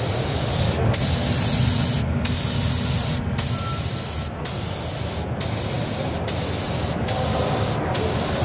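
Compressed-air spray gun hissing as it sprays coloured cocoa butter into a chocolate bonbon mould, in repeated passes with short breaks about once a second.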